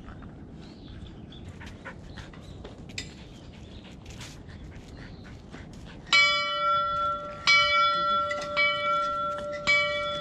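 Hanging metal bell struck four times, about a second apart, starting some six seconds in. Each stroke rings on under the next.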